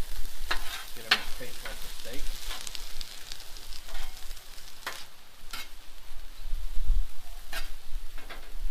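Steak and sweet pepper strips sizzling on a hot Blackstone flat-top griddle, with a series of sharp scrapes and taps as metal spatulas work the food across the steel plate.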